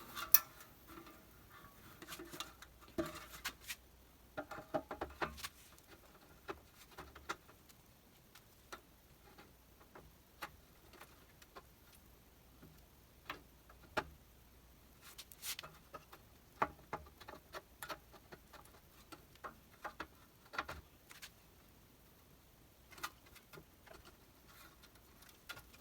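Scattered light clicks and taps of delta 3D printer frame parts being handled and fitted together as the top piece goes onto the columns, coming at irregular intervals.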